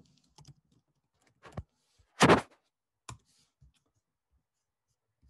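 A few separate clicks from a computer keyboard and mouse while a folder is named and the files are selected, the loudest a short, sharp clack a little past two seconds in.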